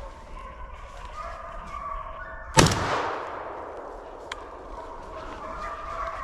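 Hunting hounds baying steadily on a deer's trail, then a single loud gunshot about two and a half seconds in that echoes away through the woods while the hounds keep baying.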